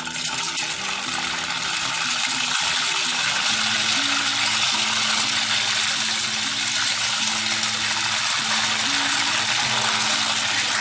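Boiled noodles deep-frying in hot oil: a loud, steady sizzle.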